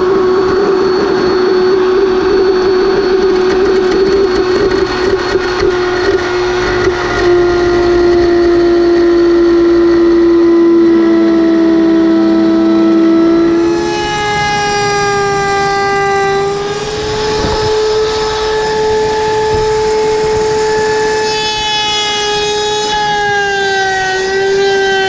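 Band saw cutting a purpleheart board: a loud, steady whine over a rough rasp, the pitch sinking slowly as the blade works through the hardwood, then shifting and thinning about fourteen seconds in.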